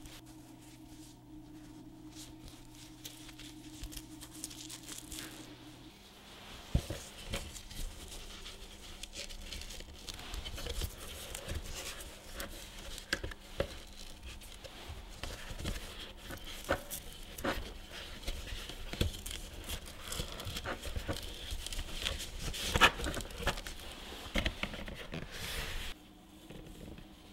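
Hands fitting fabric padding onto a welding helmet's plastic headband: fabric rustling and scratching with many small plastic clicks and knocks, and one sharper knock near the end. A faint steady hum is all there is in the first few seconds.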